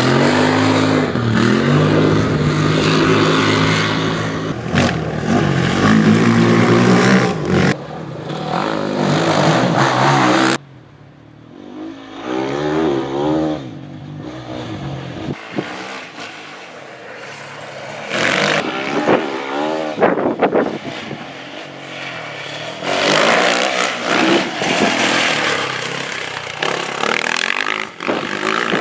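Off-road rally cars racing past, engines revving hard with pitch climbing and dropping through gear changes. One loud close pass first, then after a sudden cut several quieter passes that swell and fade.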